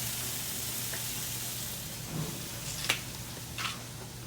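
Pork ribs sizzling on a grill as barbecue sauce is brushed on: a steady hiss that slowly fades, with one sharp click about three seconds in.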